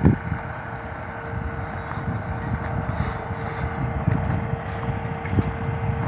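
Engine running steadily with a constant hum, mixed with a low rumble of wind on the microphone.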